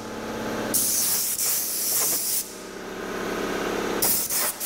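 Hissing spray from a pressurised nozzle, let off in bursts: one long burst starting about a second in, then two short bursts near the end.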